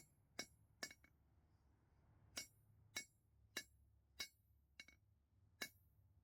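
Blacksmith's hammer striking steel on an anvil: about eight sharp, ringing blows at an uneven pace, with a pause of about a second and a half after the first two.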